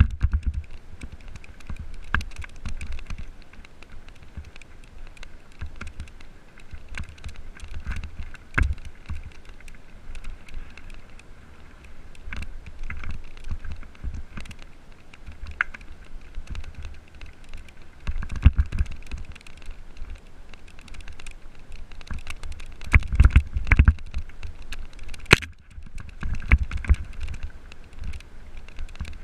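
Mountain bike descending a loose gravel trail: a constant clatter of rapid clicks and rattles as the bike and its camera mount shake over the stones, with tyres crunching and a low wind rumble on the microphone. Harder knocks come in clusters, loudest about three quarters of the way through.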